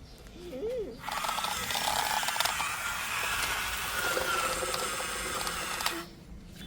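A small mechanism running with dense, rapid clicking and rattling. It starts abruptly about a second in and cuts off sharply about five seconds later. Just before it comes a brief sliding, pitched sound.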